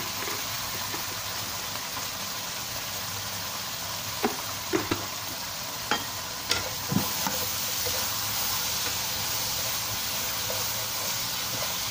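Onions, chillies and dried shrimp in a thin sauce sizzling and bubbling in a non-stick wok. There are a few sharp knocks around the middle, and near the end a wooden spatula starts stirring the mixture.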